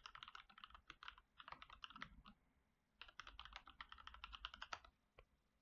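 Faint typing on a computer keyboard: a run of rapid keystrokes, a short pause, then a second run, and one more single click near the end.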